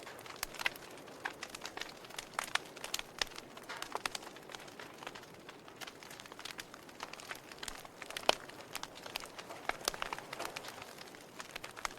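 Wood fire crackling in a fireplace: irregular snaps and pops over a soft hiss, with one sharper pop about two-thirds of the way through.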